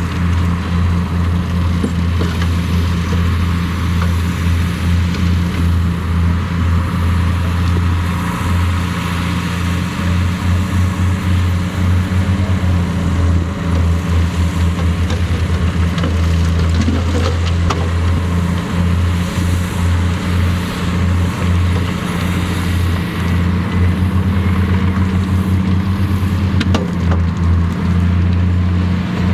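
Heavy diesel engine of construction machinery running steadily for the whole stretch, a deep drone with a fast low throb and no clear change in speed.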